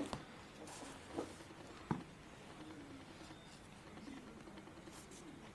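Faint rustling and brushing of a hand over the paper-covered boards and pages of a handmade photo album, with a few light taps, the clearest about two seconds in.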